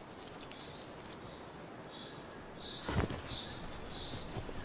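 Quiet outdoor ambience of short, high chirps repeating every half second or so, with one brief thump about three seconds in.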